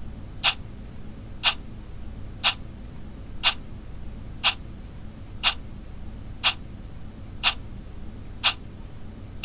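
Wall clock ticking, one sharp tick each second, every tick alike and evenly spaced, over a faint low background rumble.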